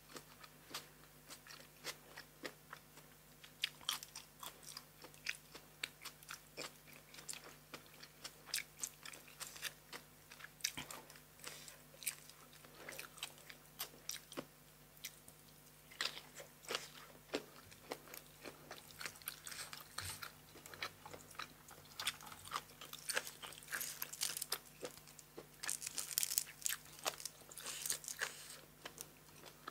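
Close-miked chewing and biting of crisp food, blanched cuttlefish and raw vegetables, with irregular wet crunches that come thicker and louder in the second half.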